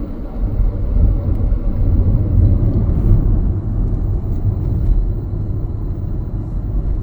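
Steady low rumble of a car driving on the road, road and engine noise without any distinct event.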